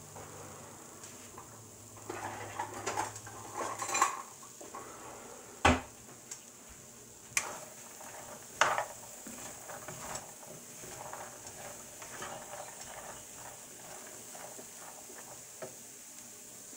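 Corn kernels being stirred in a nonstick skillet with a spoon while they roast over medium heat: scraping and rustling of the kernels, with three sharp knocks of the spoon against the pan a few seconds in, over a faint sizzle.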